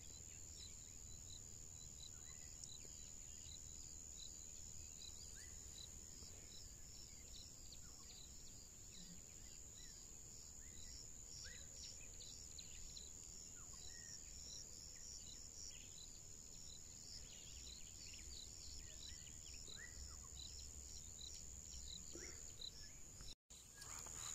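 Faint chorus of crickets and other insects: a steady high whine with quick repeated chirps over it. A few short rising chirps sound now and then, and the sound cuts out for a moment near the end.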